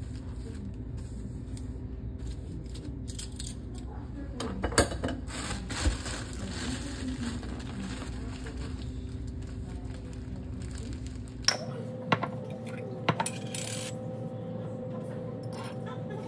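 Light clinks and knocks of sandwich makings being handled on a hard counter: jar, lid and knife. There is a small cluster about a third of the way in and a few single clinks later, over a steady room hum that changes abruptly about two-thirds through.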